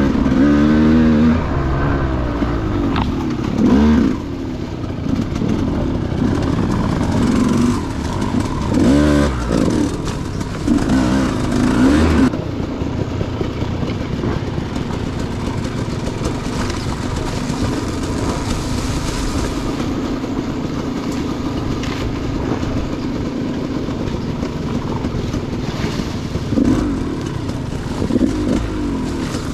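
KTM 200 XC-W two-stroke single-cylinder dirt bike engine on the trail. The throttle is blipped and revved up and down repeatedly for about the first twelve seconds, then the engine runs at a steadier throttle, with two more short revs near the end.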